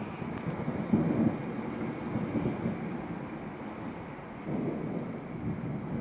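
Thunder rumbling low and rolling from a thunderstorm, swelling louder about a second in and again near the end.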